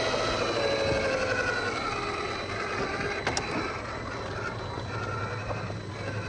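Traxxas TRX-4 Sport RC crawler's electric motor and geared drivetrain whining, the pitch wavering as the throttle changes and growing fainter as it moves off. A couple of sharp clicks a little over three seconds in.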